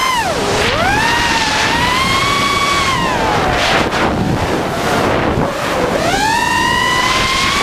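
ImpulseRC Reverb FPV racing quadcopter's brushless motors and propellers whining, the pitch dipping and rising with the throttle: a sharp dip about half a second in, a fall around three and a half seconds, and a climb again near six seconds. A steady rush of wind and prop wash runs under the whine.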